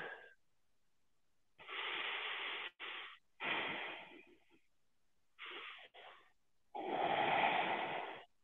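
A man breathing heavily into a close microphone while holding a strenuous standing forward bend: a series of breathy hisses, the longest and loudest near the end.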